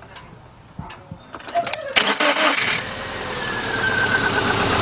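2000 Subaru Impreza Outback's 2.2-litre flat-four engine cranked by the starter about two seconds in, catching within a second and settling into a steady run. One fuel injector is unplugged and feeding a noid light, so that cylinder isn't getting fuel, on an engine that already has a misfire and runs rough.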